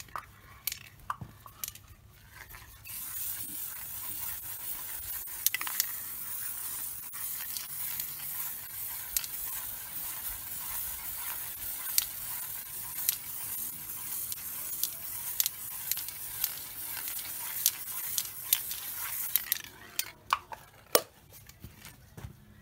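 Aerosol spray can of primer spraying in a steady, high-pitched hiss that starts about three seconds in and stops a few seconds before the end, with scattered sharp clicks.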